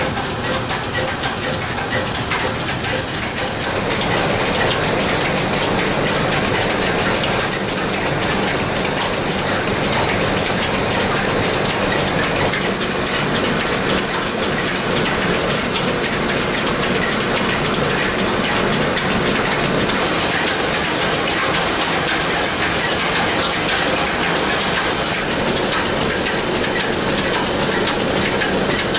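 Woodturning lathe running steadily with a wooden spinning top being polished on it by hand, a steady rushing sound. It grows louder about four seconds in.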